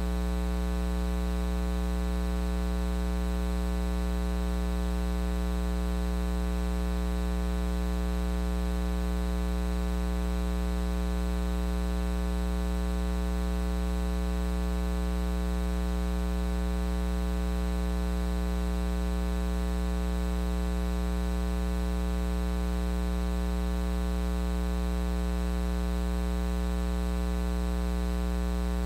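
Loud, steady electrical mains hum with a buzzy edge and a faint hiss, unchanging throughout; no voice is heard above it.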